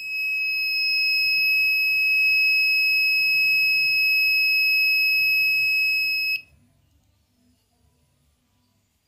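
Homemade door alarm's buzzer sounding one continuous, steady high-pitched tone, which cuts off suddenly about six seconds in.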